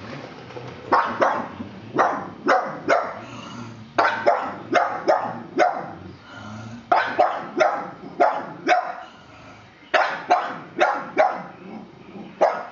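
Pug barking repeatedly, short sharp barks in quick runs of two to five with brief pauses between: wary alarm barking at an unfamiliar plastic toy horse.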